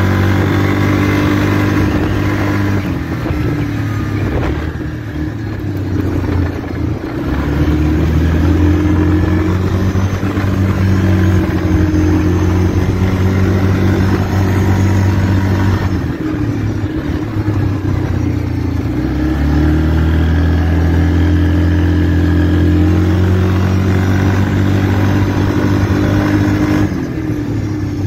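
Yamaha Kodiak 450 ATV's single-cylinder four-stroke engine running under way, its speed rising and easing off several times as the throttle changes.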